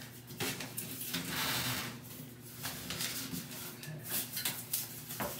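Fabric curtains rustling as they are pushed and pulled along a shower curtain rod, with light knocks from the rod and a sharp click near the end.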